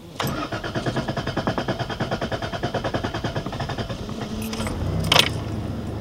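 Toyota Tacoma V6's starter cranking the engine with a rapid even chug for about four seconds, the extended cranking of a hard start, before the engine catches and settles into a steady low idle. A sharp click sounds about five seconds in.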